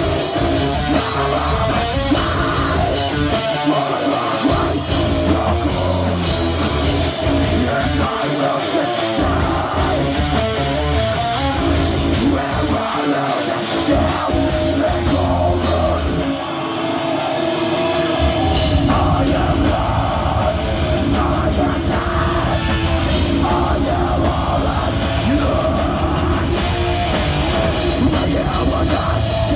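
Live heavy metal band playing a song with guitars and drums. About 16 seconds in, the low end and cymbals drop out for about two seconds, then the full band comes back in with a fast, steady beat.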